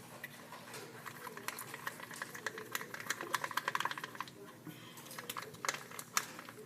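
Two sticks stirring shampoo and a pinch of salt in a little cup, mixing it into slime: quick rapid clicking and tapping against the cup, densest and fastest between about two and four seconds in.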